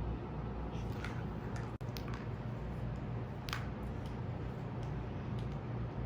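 Low steady room hum with a few faint, sharp clicks scattered through it.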